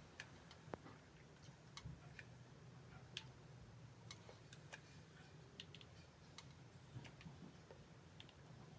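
Near silence with faint, irregular light clicks over a low steady hum: a hair straightener's plates clamping and sliding down strands of hair.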